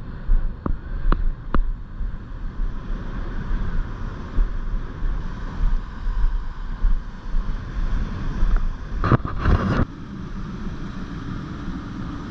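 Wind buffeting the microphone over ocean waves breaking on rocks, with a louder rush about nine seconds in.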